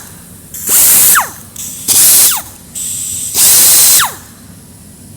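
Freshly repaired pneumatic straight grinder triggered in three short bursts, each a loud rush of air and high whine, with the pitch falling after each release as the spindle coasts down. It runs freely, showing the repair has worked.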